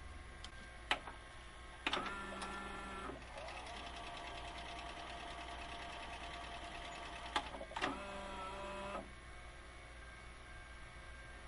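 VCR tape transport mechanism working on a VHS cassette: a click, then a sharp clack and about a second of motor whirring, a steady whine of the tape spooling for about four seconds, then two more clacks and another second of whirring before it settles to a low hum.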